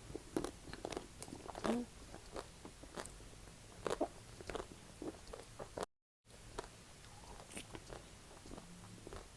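Person eating ice cream close to the microphone: irregular bites, wet chewing and lip smacks, broken once about six seconds in by a moment of total silence.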